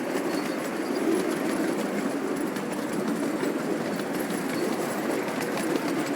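Backyard ride-on miniature train running steadily along its track, a continuous rumble with light clicking of the wheels.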